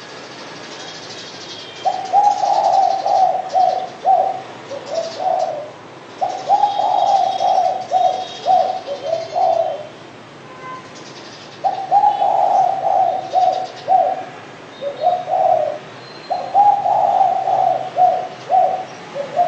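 Derkuku dove cooing: four phrases of repeated low coos, each a few seconds long, with short pauses between. Faint high chirps of other small birds sound in the background.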